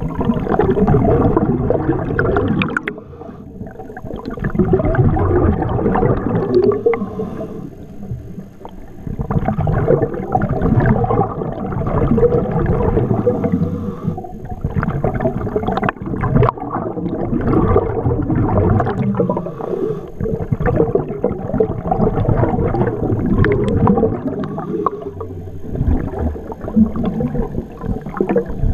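Scuba diver breathing through a regulator underwater: long surges of exhaled bubbles gurgling, broken by short quieter pauses between breaths.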